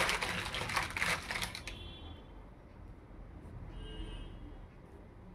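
Handling noise: a dense crackling, clicking rustle for about two seconds, then faint soft background music.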